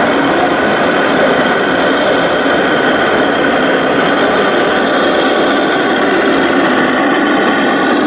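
Engine sound of a radio-controlled scale Scania truck, played by its electronic sound module, running steadily as the truck drives slowly.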